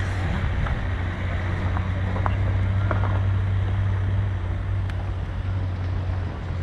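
Wind buffeting the microphone over a steady low hum, with a few faint clicks near the middle.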